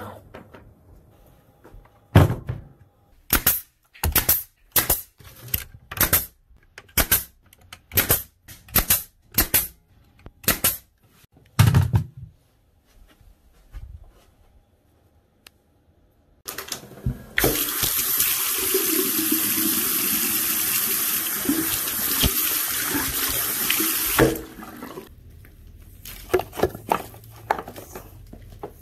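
Pneumatic nailer firing about a dozen sharp shots, one every half second to second, the last with a heavy thump. After a pause comes a steady rushing hiss lasting about seven seconds.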